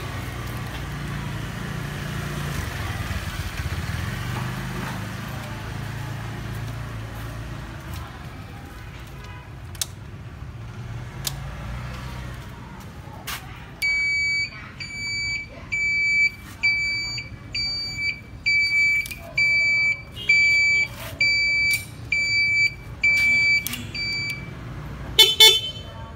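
Honda 67's small single-cylinder four-stroke engine idling with a low hum for the first twelve seconds or so. Then a high-pitched electric beep repeats about once a second, around eleven times, as the handlebar switch for the turn signals and horn is worked, and a short, harsher honk comes near the end.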